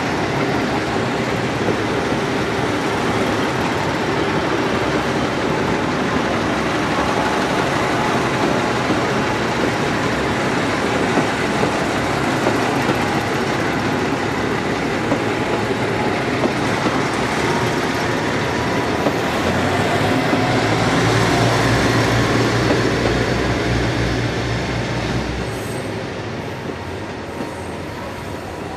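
A multi-car train of JR Tokai diesel railcars (KiHa 40-series and KiHa 11 cars) running past, with engines and wheels on the rails. A low engine hum rises about two-thirds of the way through, then the sound fades as the train draws away near the end.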